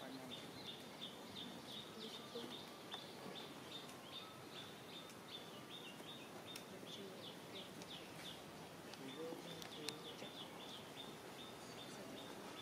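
Faint outdoor ambience with a short high chirp repeated steadily, about three times a second.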